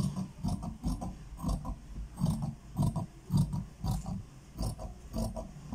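Large steel tailor's shears cutting lengthwise through a fabric strip backed with fused buckram, in repeated snips about three a second.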